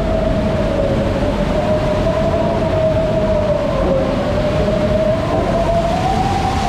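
Amusement-park water ride in motion: a steady rumble with a single whining tone that drifts slowly up and down in pitch.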